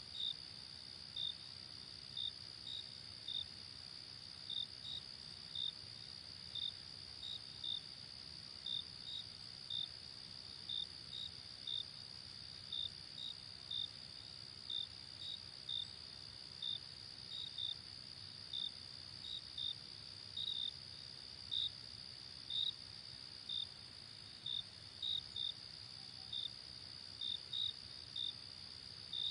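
Insects chirping: a steady high-pitched trill with short, sharp chirps over it, repeating irregularly about twice a second.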